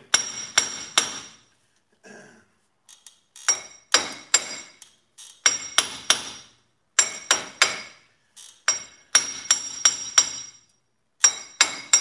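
Hammer blows on the steel hub assembly of a 2007–2013 Chevy Silverado/GMC Sierra, knocking at a hub that is stuck fast in the knuckle. Sharp ringing metallic clanks come in quick bursts of three to five blows, a burst about every one and a half to two seconds.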